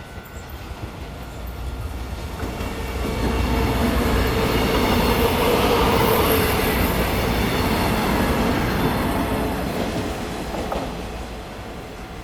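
Taiwan Railways EMU500 electric multiple unit passing by, its wheels running on the rails: it grows louder for the first few seconds, is loudest around the middle, and fades away towards the end.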